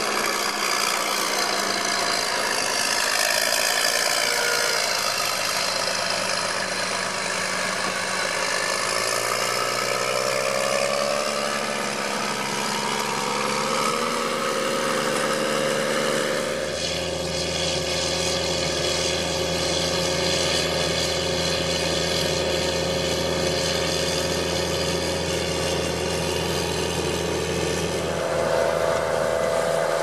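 Case IH Puma 225 CVX tractor on Soucy tracks, its six-cylinder diesel running steadily under load while pulling a six-furrow plough through the soil. The engine tone falls slowly as the tractor passes; after an abrupt change about halfway through it holds a steady pitch.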